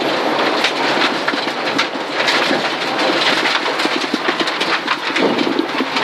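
Gravel and small stones rattling against the underside and wheel arches of a Mitsubishi rally car driven fast on a loose gravel stage, heard from inside the cabin as a loud, dense hiss of countless small clicks over the engine.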